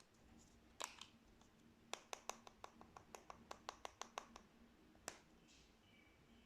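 Blue slime being pressed and worked by hand, giving sharp little clicks and pops as air pockets burst: one about a second in, then a quick run of about six clicks a second for over two seconds, and a last one near five seconds.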